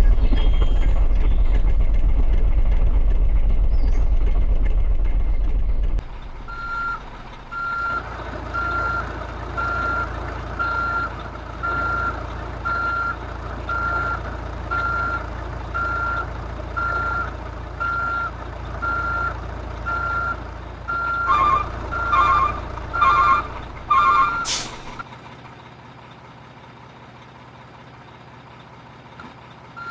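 Reversing beeper of an RC dump truck: evenly spaced beeps about once a second over a low engine-like hum, after several seconds of louder low rumbling. Near the end a second, lower tone joins each beep before the beeping stops.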